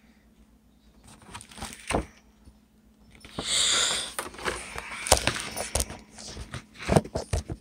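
Handling noise: scattered clicks and knocks, a short rustle about halfway through, and a quick run of sharper knocks near the end as the Pokémon card box, cards and filming phone are moved about on the table.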